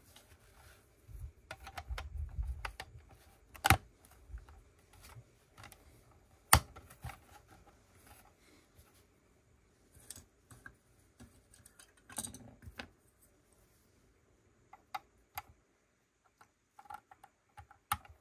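Plastic Lego pieces being handled and pressed together: scattered clicks and light clattering, with two sharp clicks about 4 and 6.5 seconds in.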